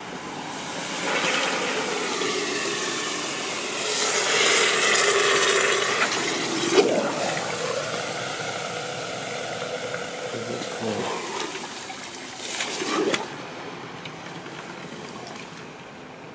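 A hot crucible plunged into pool water: the water hisses and boils around it, swelling to its loudest a few seconds in, with two short sharp splashy bursts later on before it dies down.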